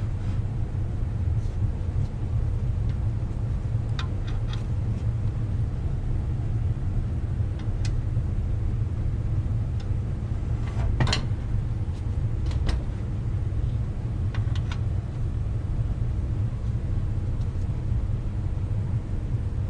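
Steady low rumble, with scattered metal clicks and clinks of hand tools on brake parts. The loudest clink comes about halfway through.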